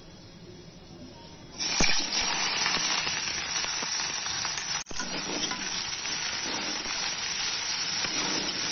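Sliced onions dropped into hot oil in an aluminium kadai, setting off a sudden loud sizzle about a second and a half in that goes on steadily as they are stirred with a spatula, with a brief break about five seconds in.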